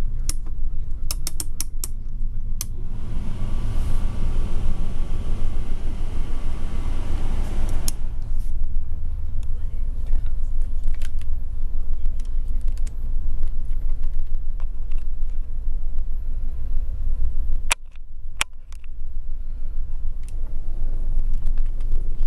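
Low steady rumble inside a Ford Expedition stretch limousine's cabin, with scattered clicks and creaks. A rushing hiss runs from about three to eight seconds in, and the rumble drops out briefly near the end.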